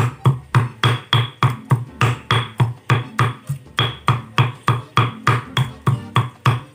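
Steady, even knocking of a kitchen utensil, about three to four strikes a second, each a sharp click with a dull thud, over faint background music.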